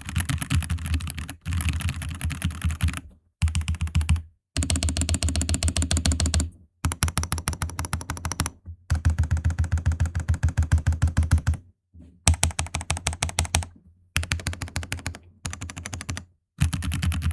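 Typing on a Fantech Atom Pro 66 (MK919) gasket-mount mechanical keyboard fitted with linear KTT Red switches. Fast runs of keystrokes come in bursts of one to three seconds, broken by brief pauses.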